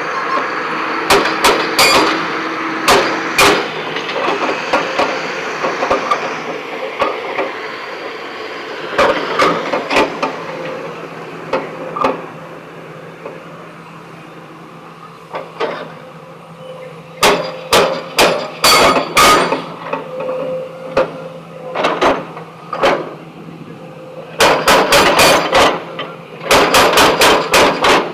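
Sharp knocks of stone being struck and broken. They come singly and in quick runs, with a fast run of about four strikes a second near the end, over a steady low hum.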